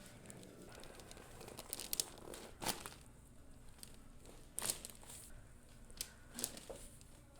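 Soft rustling and crinkling on a chiropractic treatment table as the patient shifts position, with a few short sharp clicks scattered through.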